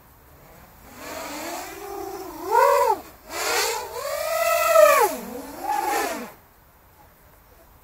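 Quadcopter's T-Motor F80 1900kv motors driving Dalprop 7040 propellers, a whine that rises and falls in pitch with the throttle in several surges, with a brief drop about three seconds in. It fades out about six seconds in.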